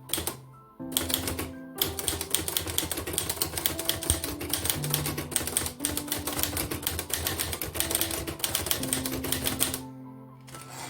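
Underwood 378 typewriter being typed on: a fast, uneven run of key strikes, typing a test line to try out a freshly fitted ribbon, with a pause of about a second near the end before a few more strikes. Background music plays with it.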